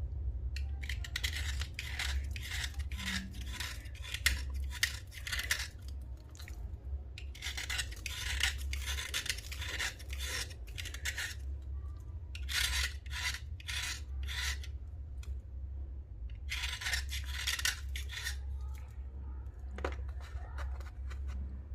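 Slate being scraped in quick rasping strokes, coming in runs of a few seconds with short pauses between, over a steady low hum.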